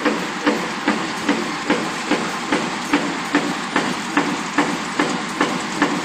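Punch press stamping metal connectors from coil-fed strip, striking in a steady rhythm of about two and a half strokes a second over the steady running noise of the line.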